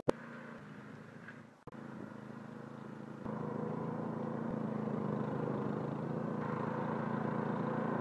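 Walk-behind snowblower engine running steadily while clearing deep snow, its hum stepping up in loudness about three seconds in as the machine comes closer.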